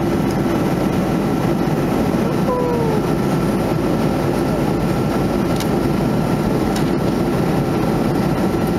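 Steady cabin noise of a Boeing 737-500 airliner in descent: the even rush of airflow over the fuselage and its CFM56-3 turbofan engines, with a faint steady whine above it.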